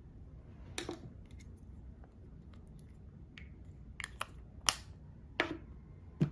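Makeup containers and tools being handled: scattered light clicks and taps, the sharpest coming in a cluster about four to five and a half seconds in.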